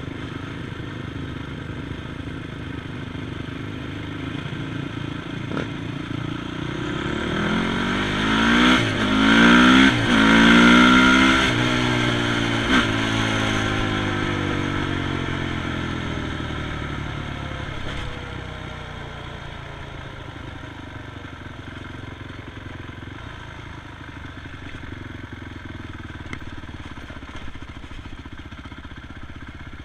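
ATV engines running, with one revving hard and swelling to its loudest about nine to twelve seconds in, its pitch sliding up and down, then fading over several seconds.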